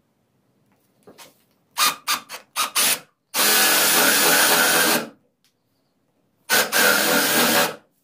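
Cordless drill boring into the end of a debarked wooden branch: a few short trigger bursts, then two steady runs of about two seconds and a second and a half, with a pause between.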